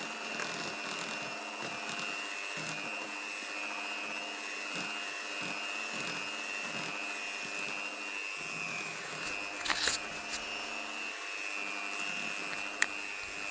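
Electric hand mixer running steadily, its beaters whipping flour into a thick cake batter in a stainless steel bowl: a constant motor whine, with a couple of brief knocks about ten seconds in and near the end.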